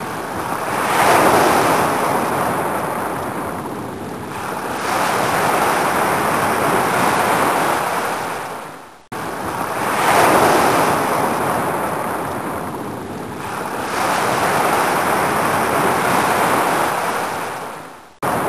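Ocean surf: waves washing in, a noisy rush that swells and ebbs every few seconds. The same stretch of surf plays twice, fading out and restarting suddenly about halfway through.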